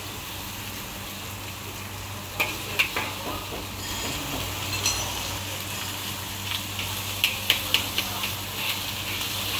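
Food sizzling as it is stir-fried in a wok over a gas burner, while a metal spatula stirs and scrapes it. Sharp clinks of the spatula against the wok come now and then, in small clusters a couple of seconds in and again later on.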